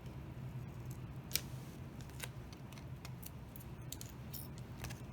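Scissors snipping the corners off a thin embossing-metal sheet: a few separate sharp snips, the loudest about a second and a half in, over a steady low hum.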